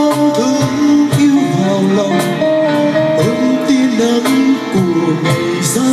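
Live pop ballad: a male singer holds and bends long notes into a microphone over guitar and cajon accompaniment, with regular percussion strikes.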